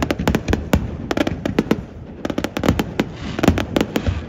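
Fireworks display: a rapid, irregular run of sharp bangs and pops, about five a second, from shells launching off a barge and bursting overhead. A spell of hiss comes a little after three seconds in.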